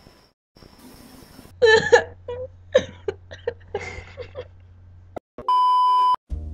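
A person's voice in short, broken vocal sounds over a low hum for about three seconds. It is followed, about five and a half seconds in, by a brief steady electronic beep of the censor-bleep kind. Music starts right at the end.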